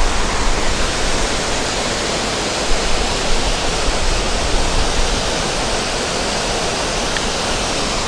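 Creek waterfall rushing in a steady, even hiss of falling water.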